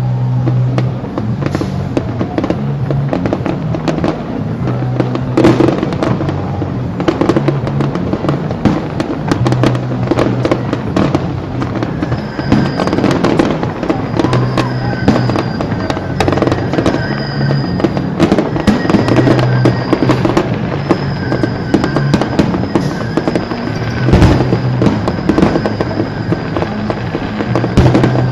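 Fireworks display: a dense run of bangs and crackling salvos, one after another, with music playing underneath.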